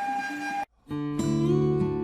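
Background music: a held steady tone cuts off about two-thirds of a second in, and after a short silence a new piece of music starts with plucked notes.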